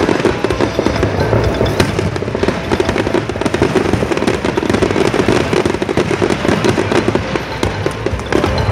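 Aerial fireworks bursting and crackling in dense, rapid succession, many sharp pops overlapping into a continuous crackle.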